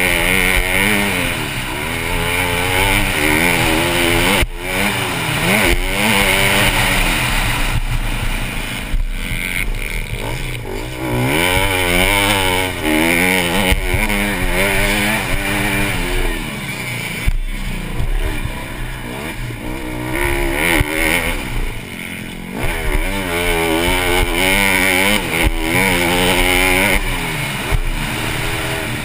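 Honda CRF150R's four-stroke single-cylinder engine revving hard and shifting through the gears, its pitch climbing again and again and dropping at each shift or when the throttle is rolled off. Heard up close from a helmet-mounted camera.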